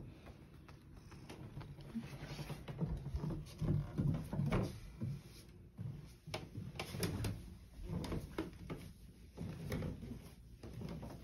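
Irregular soft thumps and knocks of slow footsteps going down a wooden staircase.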